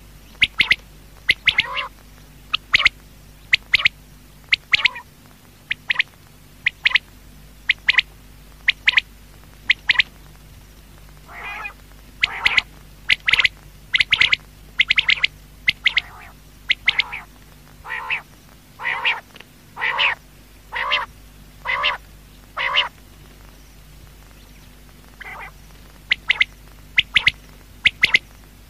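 Quail calling: short, sharp notes in quick groups of two or three, repeated about every second, over a steady low hum.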